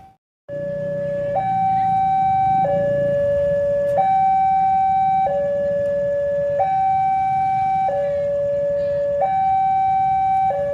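Two-tone electronic warning alarm switching evenly between a high and a low tone about every 1.3 seconds, as sounded by a railway level-crossing signal when a train approaches. A low rumble runs underneath.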